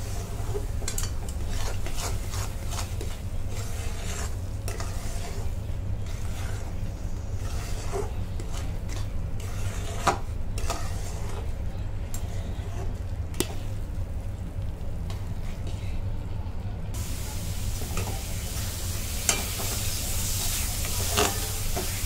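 Metal spatula stirring and scraping thick bottle gourd halwa around a metal kadhai on the flame, with scattered clicks of the spatula against the pan over a steady low hum. A frying sizzle grows louder in the last few seconds.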